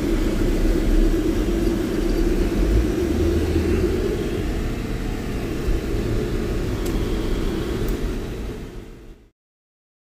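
Steady low rumble of a car on the move, road and engine noise heard from inside the car. It fades out and cuts to silence about nine seconds in.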